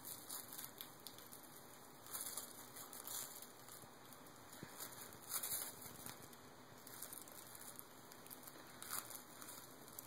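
Sheets of purple paper crinkling and rustling as a baby's hands grab and push at them, in faint, irregular short bursts every second or two.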